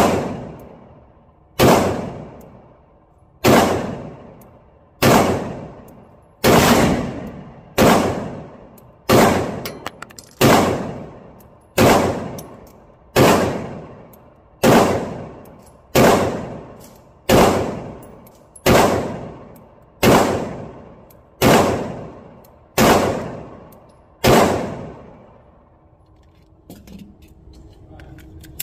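Girsan 1911 pistol in 9mm fired in a slow, steady string of about eighteen shots, roughly one every second and a half, each shot ringing out in the echo of an indoor range. The shots stop a few seconds before the end, followed by small clicks of the pistol and magazine being handled.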